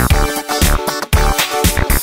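Upbeat electronic background music with a steady drum beat and a synth melody.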